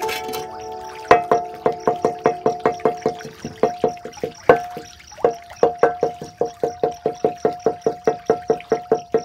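Background music: a held chord, then from about a second in a plucked instrument rapidly repeating two notes, about four to five notes a second, with a short break around the middle.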